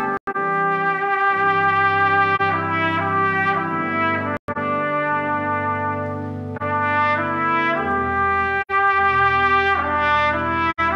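Trumpet playing a slow melody of held notes over sustained church organ chords. The sound cuts out for an instant about four times, dropouts from a faulty recording device.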